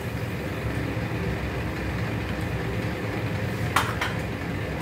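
Steady low rumble of a lit gas stove burner under an aluminium pressure cooker, with two short clacks of kitchenware near the end.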